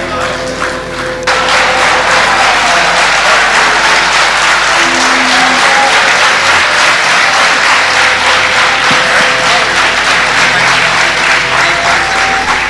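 Large audience applauding, the clapping swelling sharply about a second in and then holding steady.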